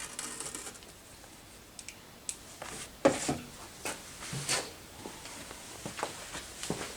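Scattered clicks and clinks of metal hand tools being handled and set down, a few seconds apart, while a tool is tried on the engine's head bolts.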